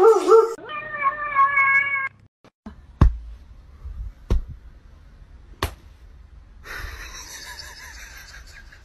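A dog's whining cry stops about half a second in. A cat then gives one long, steady meow. Later come three sharp taps a little over a second apart, and a breathy hiss-like noise near the end.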